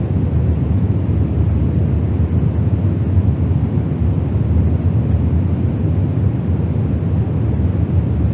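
Auralized vehicle wind noise predicted by a PowerFLOW aeroacoustic simulation: a steady rushing noise, heaviest in the low range. It is the wind noise heard inside a car at speed.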